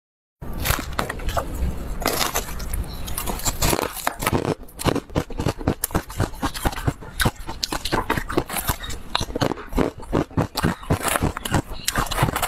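Crushed, frosty ice being scraped with a spoon in a plastic bowl and crunched and chewed close to the microphone. For the first few seconds there is a rougher scraping crackle. From about four seconds in it turns into a dense run of sharp, separate crunching clicks.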